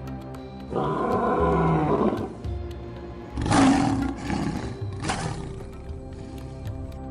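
Male lion roaring in three calls: a long one about a second in, the loudest about three and a half seconds in, and a short one about five seconds in, over background music.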